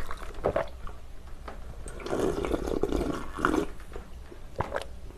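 Slurping spicy seafood jjamppong broth straight from the rim of a glass baking dish, with the liquid sloshing. There is a longer, fuller drawn sip a couple of seconds in.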